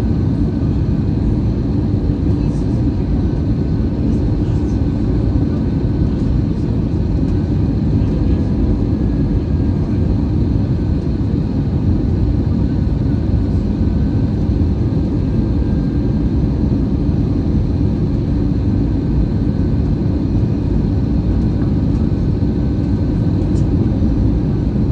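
Steady low roar inside the cabin of an Airbus A320 on final approach to landing: airflow and its CFM56-5B engines running at low approach thrust.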